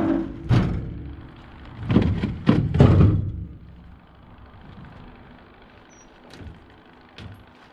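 Several heavy thuds and bangs in the first three seconds, then a faint, steady low hum.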